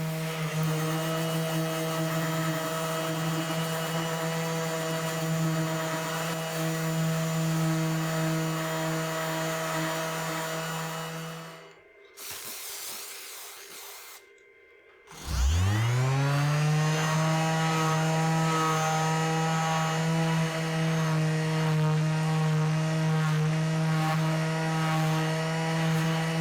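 Electric power tool motor running at a steady high speed with a constant whine. Shortly before halfway it stops. After a few seconds it starts again with a rising whine, spinning up to the same steady speed.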